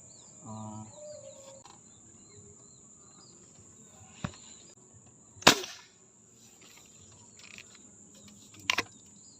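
Steady high-pitched drone of insects such as crickets, with a few bird chirps in the first seconds. Three sharp clicks or knocks cut through it, the loudest about five and a half seconds in.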